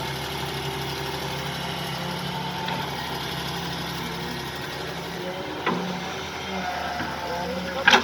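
Excavator engine running steadily, with a sharp knock about three-quarters of the way through and a louder one at the very end.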